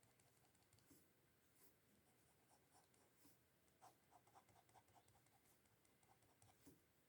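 Faint, short scratches of a pencil stroking on paper while detailing a sketch, in small clusters, most of them a little past the middle.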